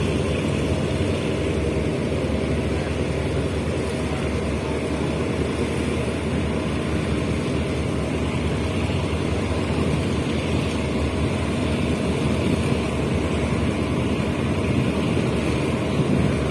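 Steady rumble of an express passenger train running, heard at an open carriage window: wheels on the rails and rushing air, with a low hum underneath.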